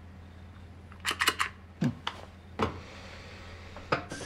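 A quick run of sharp clicks and knocks about a second in, then a few single knocks, over a steady low hum.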